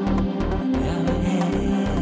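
Background music with a steady pulsing bass beat, about three pulses a second, under sustained synth-like tones.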